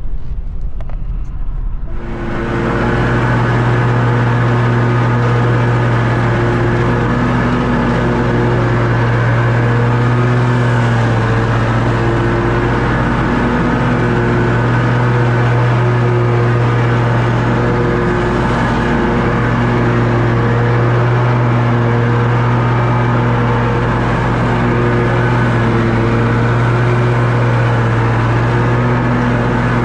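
Toro Grandstand stand-on mower engine running steadily at mowing speed. It comes in loud about two seconds in, after a quieter moment.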